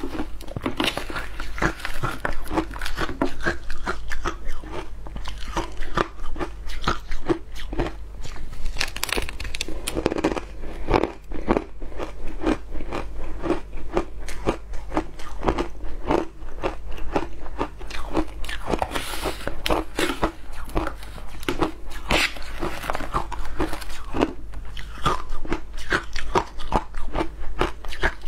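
Mouthfuls of matcha shaved ice being bitten and chewed, a close, continuous run of rapid crunches.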